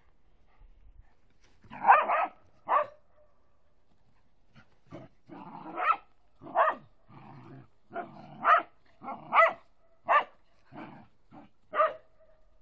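Dog barking while playing: quiet at first, two sharp barks about two seconds in, then a run of about ten short barks, roughly one a second, through the second half.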